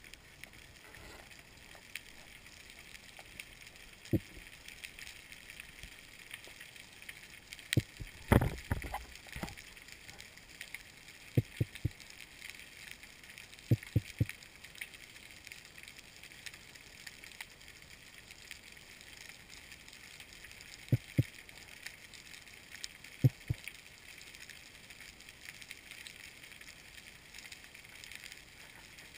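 Underwater ambience over a rocky reef: a steady fizzing crackle, with scattered sharp knocks, the loudest a cluster about eight seconds in and the rest mostly in pairs every few seconds.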